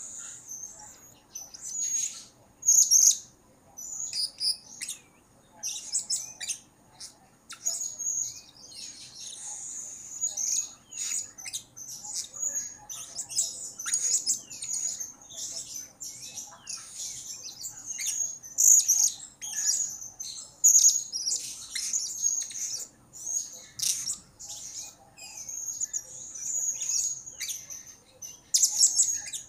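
Male blue-crowned hanging parrot (serindit) calling without a break: a rapid, busy run of thin, high chirps and twitters, with only a few short pauses.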